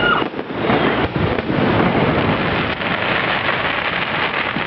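Fireworks display: dense crackling from many small bursts running together into a steady, rain-like hiss, with low rumbling beneath.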